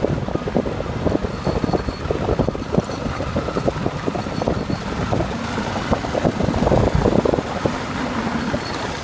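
Motorcycle running along a rough dirt road, heard from the pillion, with wind buffeting the microphone in uneven gusts.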